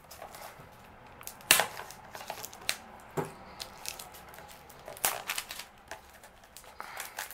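Fingers picking at and peeling the plastic shrink wrap off a DVD case: scattered sharp crackles and taps of plastic, the loudest about one and a half seconds in.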